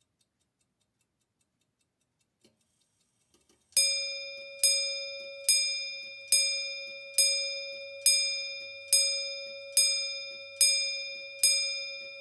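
Near silence for a few seconds, then a ringing metallic strike repeated evenly about once every 0.85 s, about ten times, each the same bell-like note dying away before the next.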